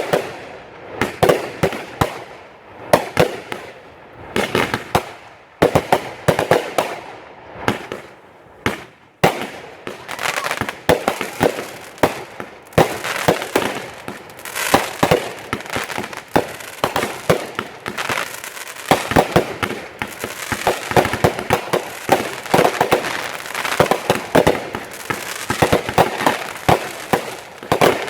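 Fireworks display: aerial shells bursting with sharp bangs, spaced apart at first, then about ten seconds in growing into a dense barrage of rapid bangs and crackling.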